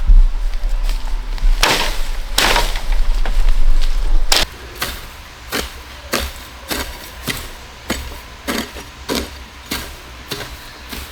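Repeated blows of a hand tool on bamboo, striking at a steady pace of a little under two a second. In the first few seconds a few heavier blows land over a low rumble.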